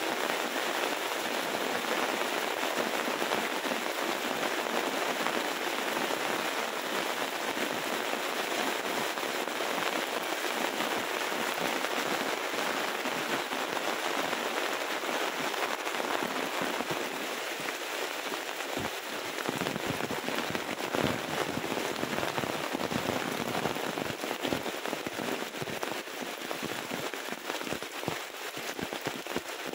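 Heavy rain falling steadily: a dense hiss full of crackling ticks from individual drops striking close by. The ticks stand out more sharply in the second half.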